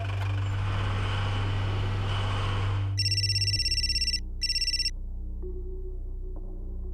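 A vehicle engine runs with a steady low hum and a loud hiss, which cuts off suddenly about three seconds in. An electronic telephone ring then sounds, a rapidly warbling tone lasting about a second and then briefly again: an incoming call.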